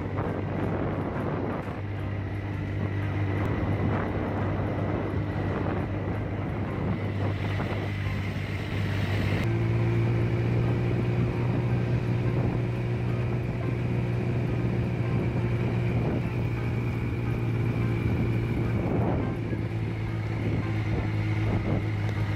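Engine of a moving vehicle running at a steady speed, a low, even hum, with wind rushing over the microphone. About nine seconds in, a cut brings a slightly higher, steady engine note.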